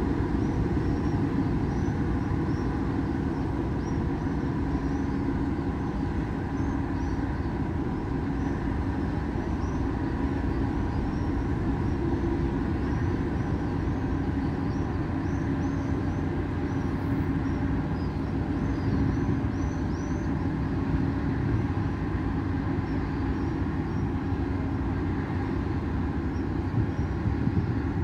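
Steady low rumble with an even hum from a large cruise ship's engines and machinery as it moves slowly past close by.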